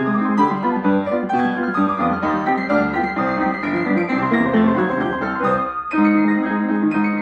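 Upright piano played four hands, a continuous duet of notes and chords. A little before the end there is a brief break, after which the playing comes back in louder.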